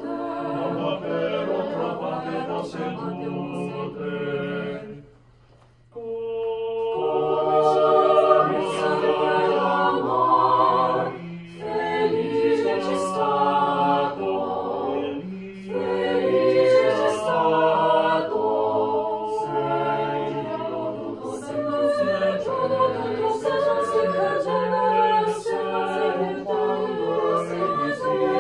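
Mixed chamber choir singing a cappella in several parts. The voices stop together about five seconds in for a short rest, then come back in loudly together.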